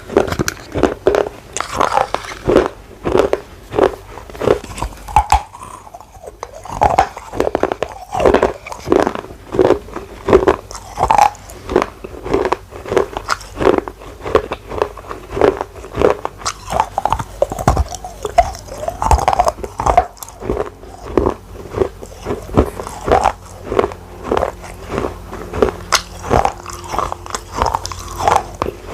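Close-miked chewing and biting of pieces of a small red clay gullak wetted with water: a steady run of crunching chews, about two a second.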